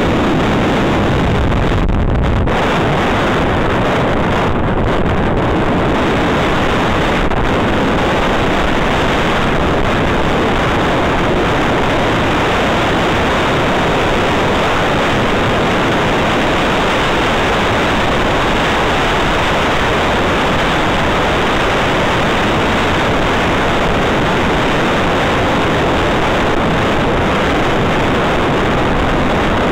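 Steady wind rushing over the microphone of a camera riding on a mountain bike during a downhill run, loud and unbroken.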